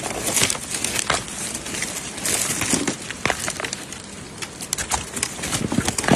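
Irregular knocks and rustling from digging bamboo shoots: a hoe striking soil and roots, with scraping and shuffling in between.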